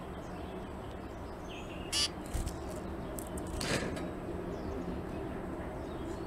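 Zebra finch calls: a few short, harsh calls, the loudest about two seconds in and another just before four seconds, with a soft thump between them, over a steady low background hum.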